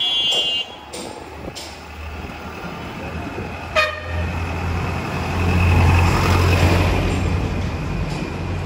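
Street traffic: a short high-pitched horn toot at the start and another brief horn about four seconds in, then a vehicle engine drones loudly as it passes close, loudest around six seconds in.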